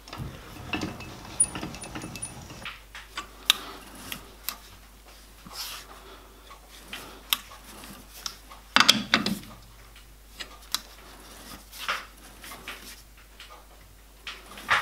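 Scattered light metallic clicks and clunks of a workpiece being set up in a lathe's four-jaw chuck and the chuck being turned by hand, with a denser clatter about nine seconds in.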